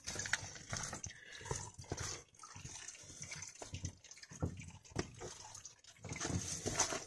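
Boot footsteps on a dirt and stony forest trail, irregular thuds and crunches about every half second to second, coming closer together near the end, from someone walking with a canoe carried overhead on a portage. A steady hiss runs beneath.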